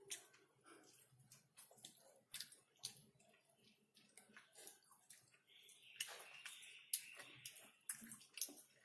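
Close-miked wet chewing and mouth smacking while eating chicken: a steady run of sharp, wet clicks, with a hissy squelch for a couple of seconds past the middle.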